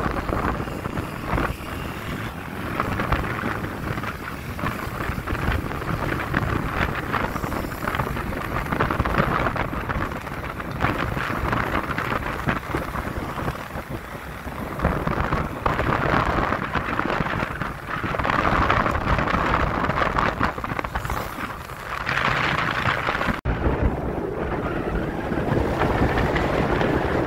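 Wind rushing and buffeting over the microphone of a moving vehicle, rising and falling in gusts over a low rumble of road and engine noise, with a split-second dropout about three quarters of the way through.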